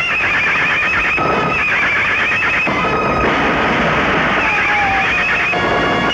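Horses whinnying: three long, quavering neighs, the third near the end, over a continuous noisy din.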